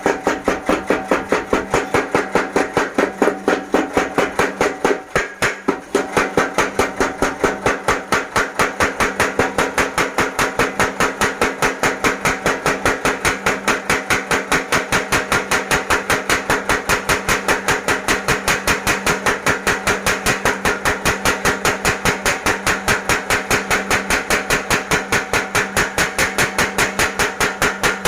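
Mechanical blacksmith's power hammer running, striking spring steel in rapid, evenly spaced blows, several a second, with a brief break about five seconds in.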